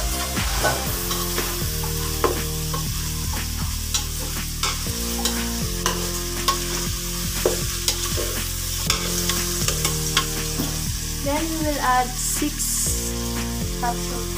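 Chicken sautéing in an aluminium pot: a spoon stirring and scraping, knocking against the pot many times, over steady sizzling.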